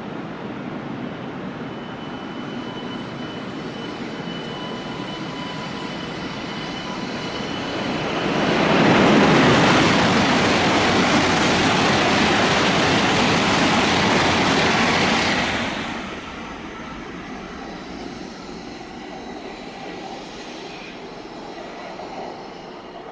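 Shinkansen bullet train passing through the station at speed without stopping. A rushing noise builds over several seconds, stays loud for about seven seconds as the train goes by, then drops off sharply and fades.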